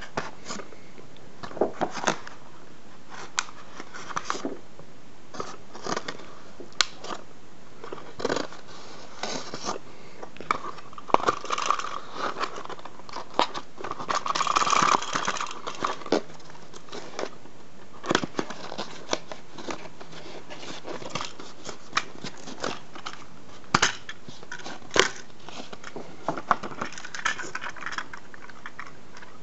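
Cardboard toy packaging and a plastic toy engine being handled: scattered clicks, scrapes and rustles, with a longer crinkling rustle about halfway through as the engine is pulled free of its box tray.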